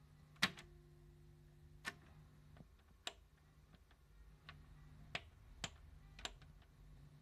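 Grundig TSC 350 receiver's piano-key source selector buttons being pressed one after another: about seven sharp mechanical clicks, the first the loudest, over a low steady hum from the set.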